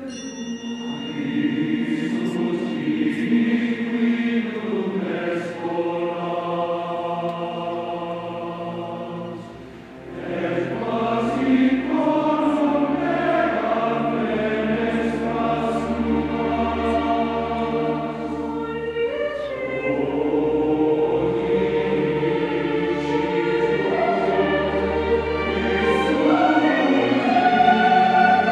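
Large mixed choir with orchestra singing sustained chords in Latin. The sound thins briefly about ten seconds in, then swells back with a deep bass note held underneath.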